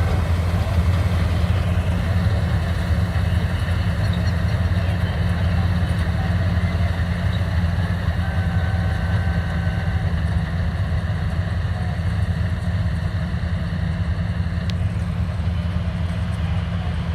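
Combine harvester's engine running at a steady speed, an even low hum with no change in pace.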